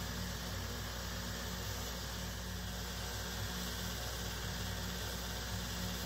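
Small bench belt sander running steadily while a golf club's ferrule is turned down against its narrow belt. Its motor hums evenly under a constant sanding hiss.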